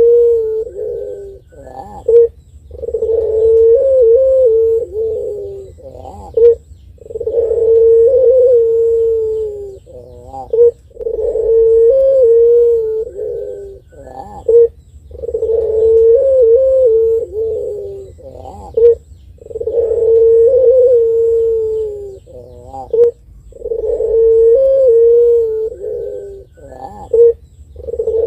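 Puter pelung, a domestic ringneck dove kept in Indonesia for its long coo, cooing in a steady rhythm. About seven long, drawn-out coos come roughly every four seconds, each opened by a short, sharp higher note.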